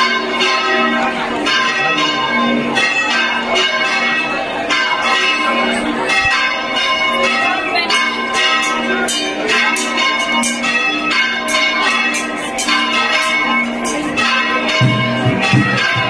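Church bells ringing, struck over and over with overlapping tones. A low drumbeat comes in near the end.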